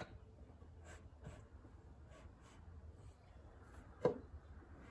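Faint clicks and light scrapes from hand work on an engine's piston and connecting rod as the piston is pushed down its bore, with one sharper knock about four seconds in.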